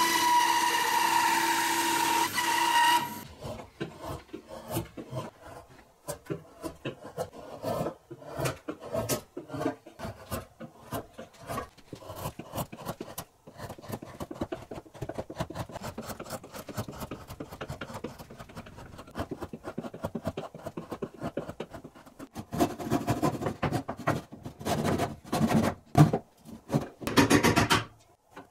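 A bandsaw cutting through a block of wood for about three seconds, with a steady whine. Then a hand chisel pares shavings off a wooden block in many short scraping strokes, coming faster near the end.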